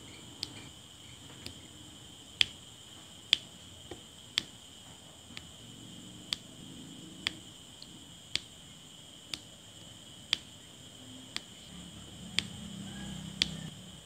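Diamond painting drill pen tapping round resin drills onto the sticky canvas one at a time: small sharp clicks about once a second. A faint steady high whine sits behind them.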